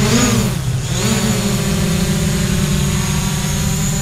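DJI Mavic Pro quadcopter flying close by, its propellers and motors making a steady buzzing whine. About half a second in, the pitch dips and then rises back as the motors change speed.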